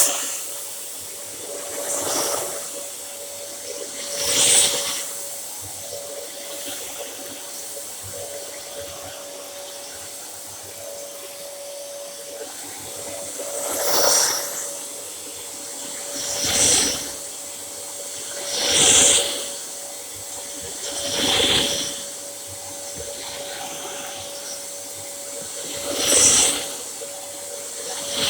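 Dyson DC07 bagless upright vacuum cleaner running with a steady motor whine. A rush of air swells and fades about eight times at uneven intervals as the cleaner is pushed back and forth.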